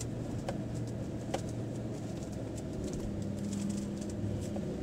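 Chevrolet Silverado pickup driving slowly over beach sand, heard from inside the cab: a steady low engine and tyre drone with a few light clicks.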